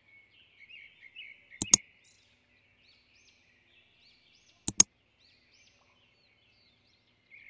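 Small birds chirping in a run of short rising-and-falling calls, with two sharp double clicks, one about a second and a half in and one near five seconds: button-tap click effects marking a like and then a subscribe press.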